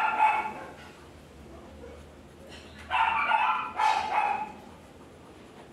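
A dog barking: a bark at the start, then a quick run of barks about three seconds in.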